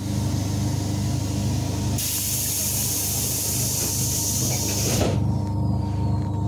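Electric commuter train heard from inside the carriage: a steady low hum, with a loud hiss of compressed air that starts about two seconds in and cuts off abruptly three seconds later.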